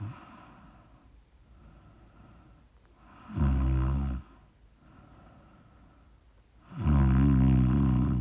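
A woman snoring in her sleep: two loud snores about three and a half seconds apart, the second one longer, with soft breathing between.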